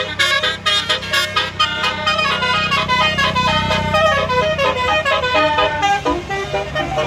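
Basuri multi-tone musical horn on a bus playing a melody in quick stepped notes, over a steady low rumble.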